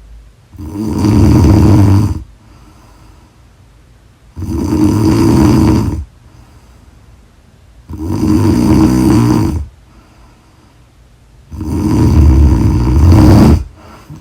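A woman snoring loudly in her sleep: four long snores, each lasting about a second and a half to two seconds and coming roughly every three and a half seconds, with quiet gaps between.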